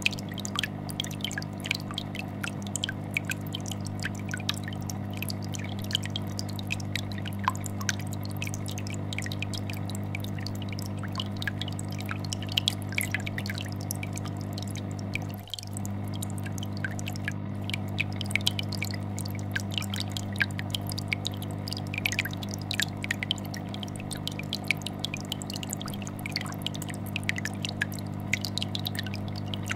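Aquarium air bubbler and filter running: a steady low hum from the filter's vibration under constant small pops of air bubbles. The sound dips briefly about halfway through.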